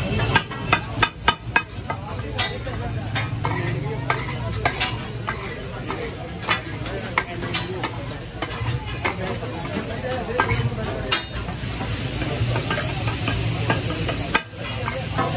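Flat metal spatula clanking and scraping on a large flat griddle as chicken in gravy is stirred and chopped, over steady sizzling; the clanks come thick and fast about a second in. The sizzling hiss grows louder from about eleven seconds.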